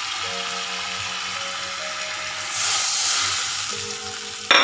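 Oil sizzling steadily in a kadai with split red chillies frying in it, over background music with held notes. The sizzle swells about two and a half seconds in, and a sudden loud burst of sizzle comes near the end.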